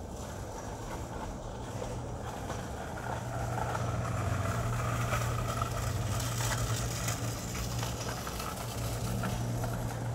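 Steady low engine hum from a motor vehicle, growing louder about three seconds in.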